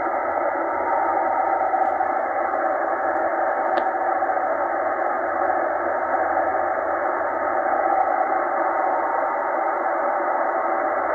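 Tecsun H-501X shortwave receiver in upper sideband playing a weak NAVTEX data signal buried in steady static that is cut off above about 2 kHz. The signal is too weak to decode.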